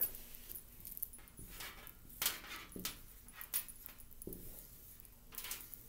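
Dry-erase marker writing on a whiteboard: a string of short scratchy strokes, some with a faint squeak, as a time is written out in digits.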